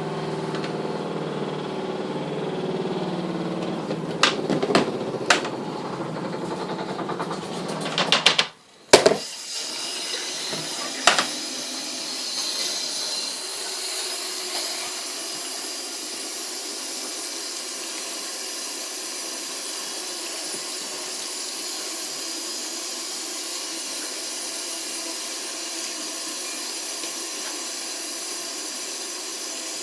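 Twin tub washing machine's motor hums steadily, with a few clicks, then stops abruptly about nine seconds in after a couple of knocks. From then on water runs steadily into the tub with an even hiss.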